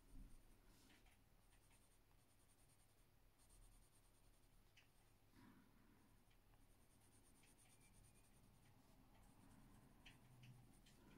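Very faint scratching of a coloured pencil on a colouring-book page, worked lightly in small circles to blend the colour.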